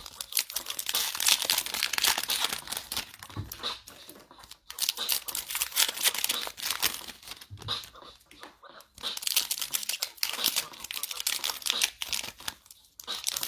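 Foil trading card pack wrappers being torn open and crinkled by hand, in three stretches of crackling with short lulls between.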